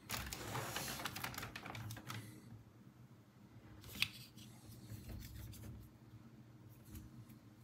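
Faint handling noise: a quick run of small clicks and rustles for about two seconds, then quieter scattered handling with one sharp click about four seconds in.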